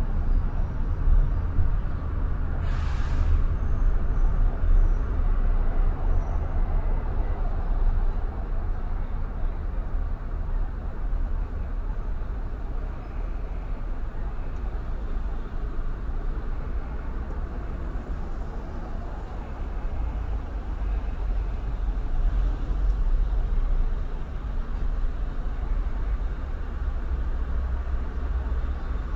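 City road traffic heard from a moving car: a steady low road rumble, with one short hiss about three seconds in.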